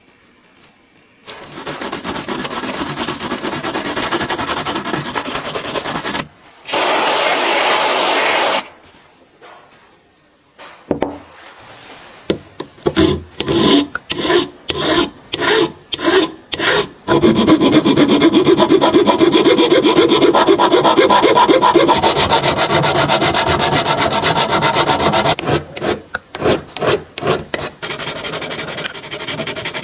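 Abrasive scraping on a workpiece, as in sanding or filing: long stretches of steady rubbing broken by runs of separate back-and-forth strokes, with a brief loud hiss about seven seconds in.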